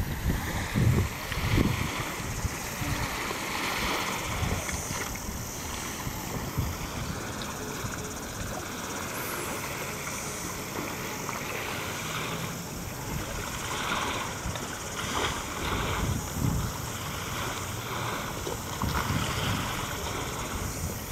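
Outdoor wind blowing across the microphone, with low gusty buffets now and then, over a steady hiss of wind and water.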